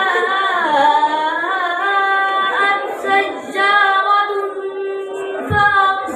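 A boy reciting the Quran in a melodic tajweed style, holding long, gliding notes into a microphone, with a short breath break near the end.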